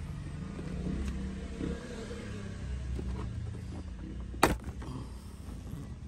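A steady low rumble, with a single sharp click about four and a half seconds in.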